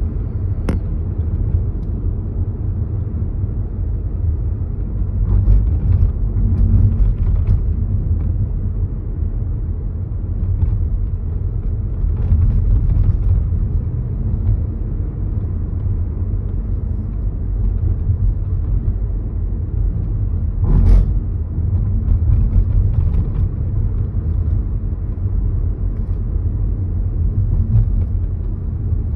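Low road-and-tyre rumble inside a slow-moving Škoda Kamiq, with a few short creaks like styrofoam rubbing, the loudest about two-thirds through. It is an abnormal low-speed noise from parts rubbing together over uneven road, which the owner cured with 3M protective film tape.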